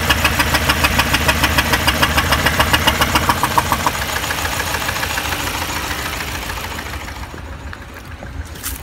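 2016 Chevrolet Malibu's 1.5-litre turbo four-cylinder engine running rough, its open oil filler neck puffing out blow-by in rapid, even puffs like a freight train: the sign of a failed piston in cylinder one, which has no compression. After about four seconds the puffing fades to a quieter engine run as the oil cap goes back on, and a sharp click or two comes near the end.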